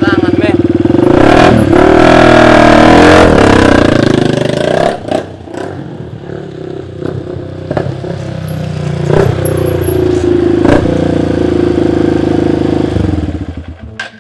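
Dirt bike with a loud racing exhaust being revved hard. It climbs to a high, loud rev for a few seconds and drops back, then revs again with several sharp cracks, and cuts off shortly before the end.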